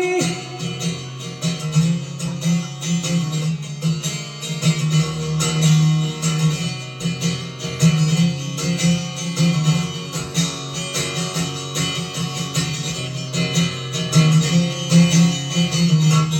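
Acoustic guitar playing the closing instrumental passage of a song, mixing strummed chords with picked notes, with no singing.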